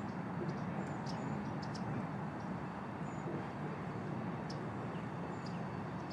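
Scattered short, high bird chirps and peeps, many in a few seconds, over a steady low background rumble.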